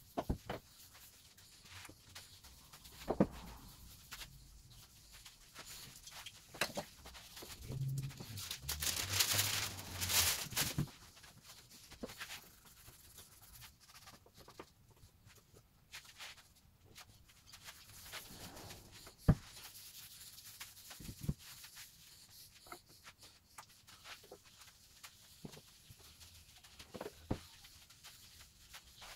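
A hand and a rag rubbing finish into the surface of an end-grain wooden butcher block: soft scattered rubbing and small knocks. There is a louder scratchy rustle lasting about three seconds around nine seconds in, and a couple of sharp clicks.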